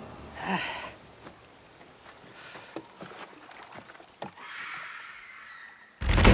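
Quiet forest ambience with a short pitched call about half a second in and scattered faint knocks. Near the end a sudden loud, deep boom cuts in.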